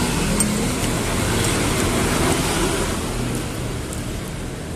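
Road traffic passing close by: a steady rumble of engines and tyres that eases off a little toward the end.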